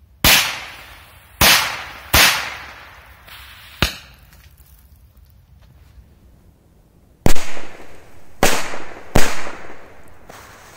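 Firecrackers exploding one after another: a string of sharp bangs, three close together and a smaller one, then a pause of about three seconds, then four or five more. Each bang trails off over about a second.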